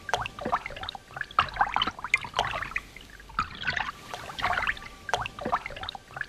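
Water pouring and splashing in irregular gushes and spatters.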